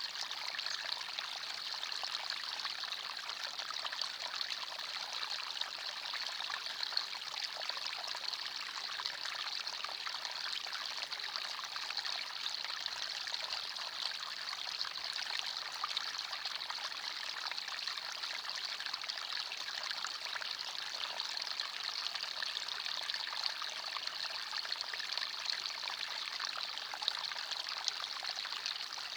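Forest stream running: steady, even babbling and trickling of water, brightest in its high splash tones.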